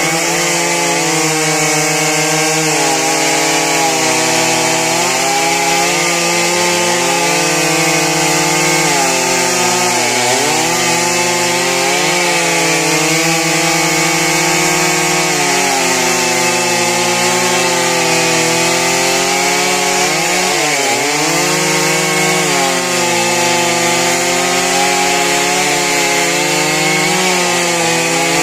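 Stihl two-stroke chainsaw running at high revs, cutting trembesi wood. Its pitch sags and recovers several times as the chain bites into the cut.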